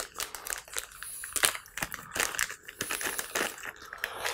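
A small plastic packaging bag crinkling and rustling in the hands as it is handled and opened, in a quick run of irregular crackles.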